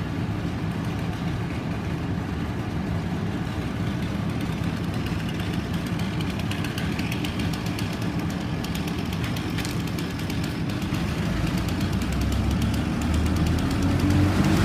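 A heavy engine, likely the crane's, runs steadily and gets louder over the last few seconds.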